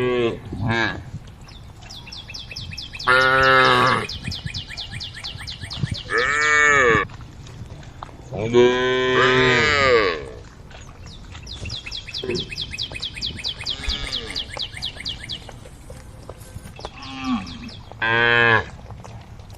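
Cattle in a herd mooing: about four loud, drawn-out calls with bending pitch, the longest about halfway through, and a few softer ones between. A fast, high trill goes on in the gaps between the calls.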